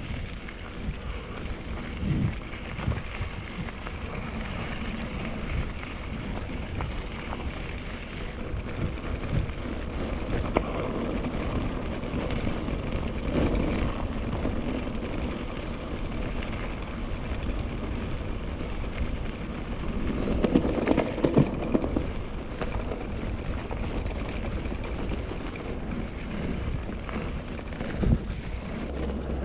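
Wind rushing over an action camera's microphone as a KTM Ultra Fire 27.5 mountain bike rolls along a gravel forest road, with tyre noise on the gravel and scattered short knocks from bumps.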